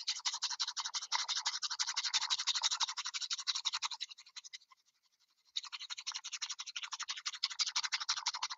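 Bamboo chasen whisking matcha in a ceramic chawan: rapid, even back-and-forth strokes brushing against the bowl, whisked to raise a froth. The whisking drops away for about a second and a half near the middle, then starts again.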